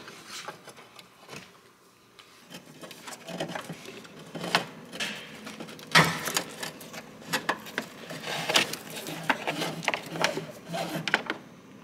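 Hands working a car's hood release cable out through the grille opening: a run of irregular clicks, scrapes and rattles of cable against metal and plastic, with one sharp knock about six seconds in.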